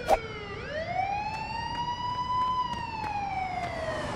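A siren wailing in one slow sweep: its pitch falls, swings up and holds, then slides slowly down again. A single sharp knock sounds just as it begins.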